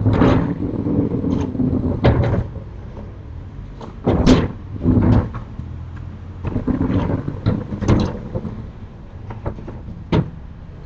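Sliding storm shutters (amado) being pushed shut along their tracks: a series of rolling rumbles and knocks, one every second or two, ending with a short sharp knock about ten seconds in.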